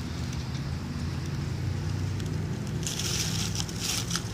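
Dry fallen maple leaves rustling and crackling for about a second, starting roughly three seconds in, as a baby's feet stand in them. A steady low hum runs underneath throughout.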